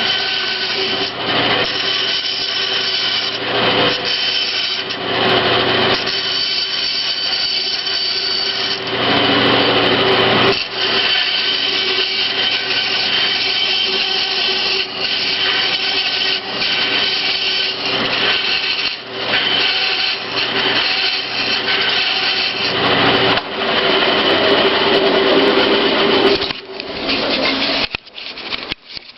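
Bandsaw running and cutting into a wooden drum, making two cuts side by side to form the groove that holds the sandpaper. The cutting sound swells and eases as the blade feeds through the wood, and the sound falls away near the end.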